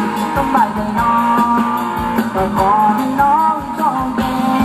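Live band playing upbeat Thai ramwong dance music, with a steady beat and a lead melody that glides up and down.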